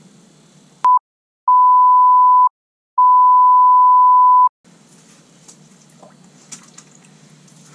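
Censor bleep: a loud, steady, single-pitched beep laid over muted audio in three pieces, a short blip about a second in, then a one-second tone and a longer tone of about a second and a half, with dead silence in the gaps. Faint rustling and small clicks of gear being handled follow once it stops.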